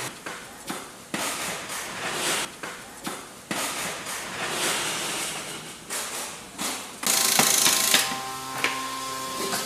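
Workshop assembly noise from building wooden cable drums: a run of irregular knocks and clatter of wood and metal parts, with a loud hissing burst about seven seconds in.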